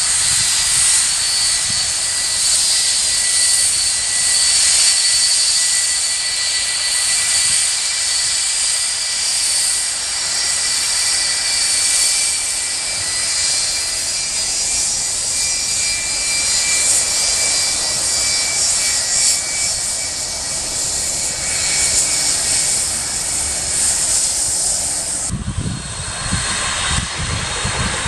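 Boeing 757 freighter's jet engines at taxi idle, close by: a steady loud rush of engine noise with high, steady whining tones. About three seconds before the end the sound changes abruptly to a more distant jet with wind buffeting the microphone.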